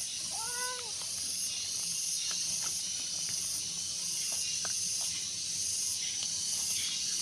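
A cat meows once, a short call that rises then falls in pitch, over a steady high hiss.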